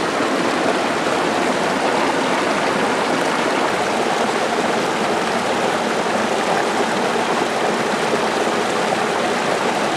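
A small stream of water flowing steadily and running down into a hollow underfoot, with an even, unbroken rush.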